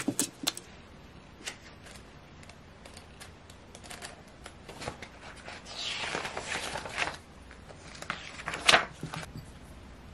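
Paper handling: pages of a spiral-bound workbook being leafed through and shuffled, a run of light taps and crinkles with a longer rustle of flipping pages in the middle and one sharper tap near the end.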